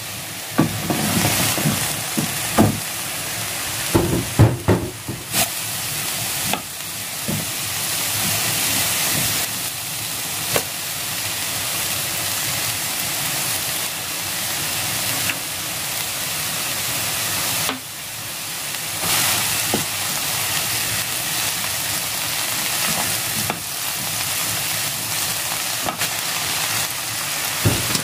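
Shredded cabbage and onion sizzling in oil in a nonstick frying pan, with occasional knocks and scrapes against the pan as they are stir-fried, most often in the first few seconds.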